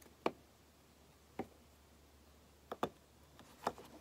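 Light plastic clicks from the parts of a GFB DV+ diverter valve being handled and pressed together, five short clicks in all, two of them close together a little before three seconds in.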